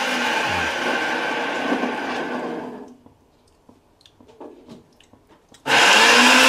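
A small electric motor whirring steadily, the way a kitchen blender or mixer runs. It stops sharply just under three seconds in, leaving a few light clicks, and starts again near the end.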